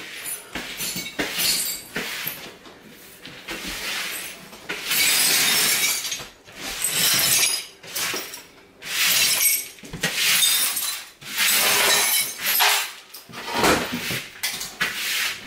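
A broom sweeping shards of broken ceramic plates across a hard wooden floor. The pieces scrape and clink in repeated strokes, about one a second.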